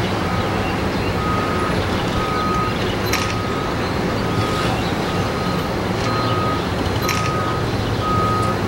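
Steady low rumble of harbour and traffic noise, with a reversing alarm beeping about once a second, each beep about half a second long. A faint click comes about every four seconds.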